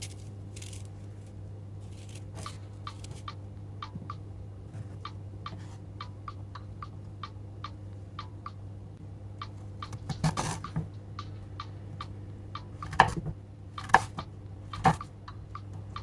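Kitchen utensils working on food: a run of quick light taps, about three a second, then a louder clatter and three sharp knocks near the end, over a steady low hum.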